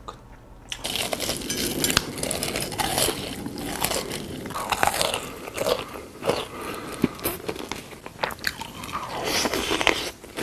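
Crunchy food being bitten and chewed close to the microphone: a dense run of crackling crunches that starts about a second in.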